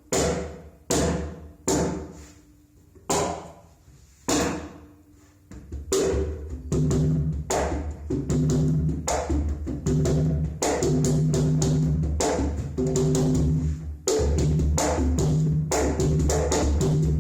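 Conga played by hand. It opens with about five separate sharp slaps, and from about six seconds in it plays a continuous fast rhythm of slaps and ringing open tones.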